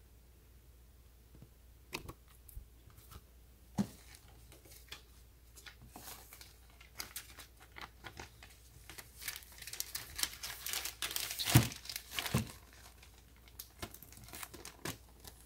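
Paper booklets and a plastic bag being handled in a cardboard box: crinkling and rustling in short spells that get busier in the second half, with two sharper knocks about three quarters of the way through.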